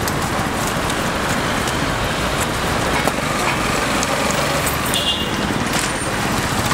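Steady road traffic noise from a city street, a continuous wash of engine rumble and hiss, with a short high tone about five seconds in.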